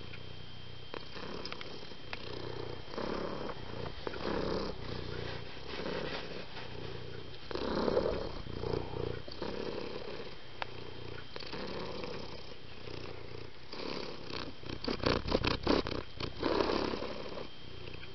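Domestic cat purring, the purr swelling and fading with each breath every second or two. A run of sharp crackles and clicks near the end.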